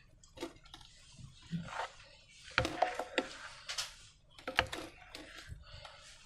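Slime being squished and worked by hand, giving irregular sticky squelches and crackling clicks, loudest a little over two and a half seconds in and again about four and a half seconds in.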